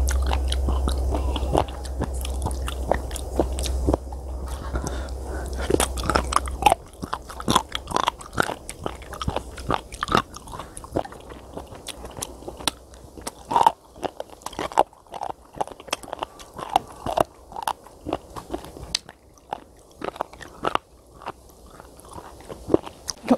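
Close-up crunching and chewing of raw sea cucumber pieces, with many sharp crunches. A low rumble of wind on the microphone runs under it for the first six seconds or so, then stops.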